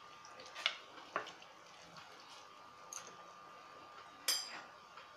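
A spoon tapping and clinking against a mixing bowl a few times as spice powders and paste go in over chicken pieces, with one louder, ringing clink near the end.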